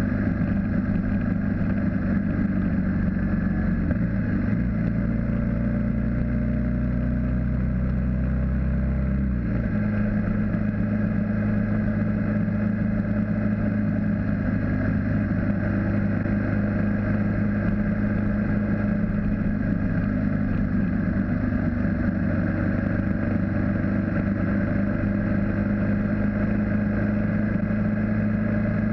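BMW G650GS single-cylinder motorcycle engine running at highway cruising speed, with wind and road noise; the engine note changes once, about ten seconds in.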